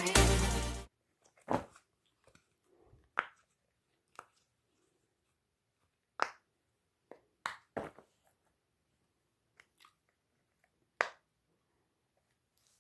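Music stops abruptly just under a second in. After that, about eight soft, separate clicks and pops come at irregular intervals, typical of silicone pop-it fidget toys being popped and handled.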